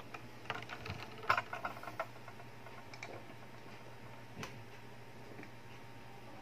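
Light clicks and taps from handling around an open inkjet printer: several close together in the first two seconds, then single ones about three and four and a half seconds in, over a faint steady low hum.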